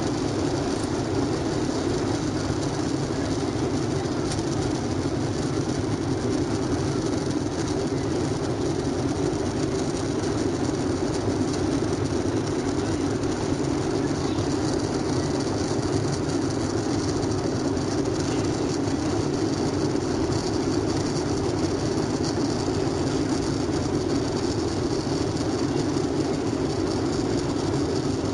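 Cabin noise of a Boeing 737-800 with its CFM56 jet engines at takeoff power, heard from inside the passenger cabin: a loud, steady low roar through the end of the takeoff roll and the initial climb.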